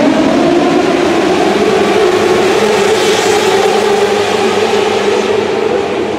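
A pack of winged micro sprint cars racing on a dirt oval, their engines running at high revs under the arena roof, several engine notes overlapping and gliding slightly. The sound grows brighter about three seconds in as the field passes nearest.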